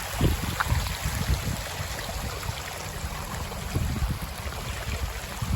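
Rushing storm runoff and heavy rain, a steady hiss with irregular low rumbles underneath.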